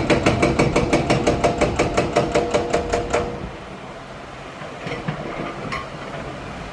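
Excavator-mounted hydraulic breaker hammering a concrete piling, a fast, even pounding of about six blows a second that stops about three seconds in. A few faint clinks follow.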